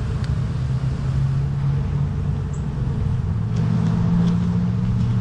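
Dense hum of many honeybees buzzing at the hive entrance: a steady drone whose pitch wavers slowly, with a few faint ticks.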